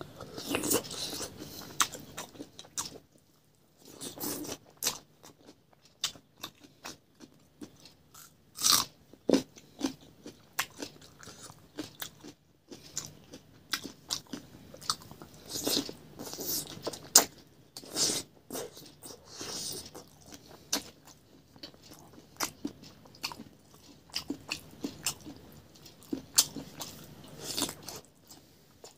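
Close-miked chewing and crunching as a person eats a rice meal by hand: irregular bites, with sharper crunches scattered through and softer chewing between them.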